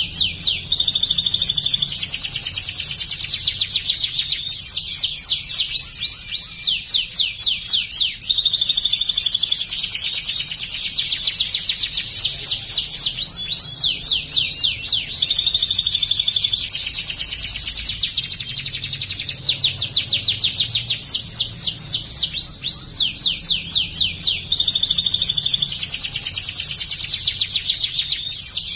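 White domestic canary singing insistently in long, rapid-fire trills of fast repeated high notes. This is the 'nembak' material copied from the ciblek (bar-winged prinia). The song breaks off only briefly a few times.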